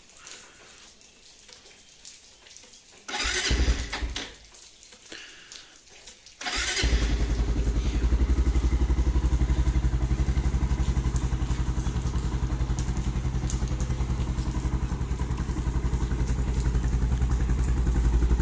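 Bajaj Pulsar 220's single-cylinder engine being cold-started in freezing weather with the choke on. The starter cranks for about a second without catching. A second try a few seconds later fires it, and it settles into a steady, evenly pulsing idle.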